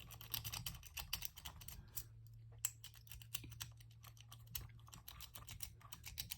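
Lock pick working the pins of a lock held under top-of-the-keyway tension: a rapid, irregular run of small metallic clicks and scrapes.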